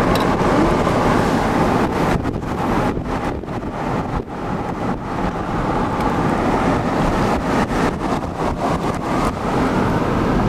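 Loud wind rushing and buffeting against a camcorder's microphone, rising and falling in gusts.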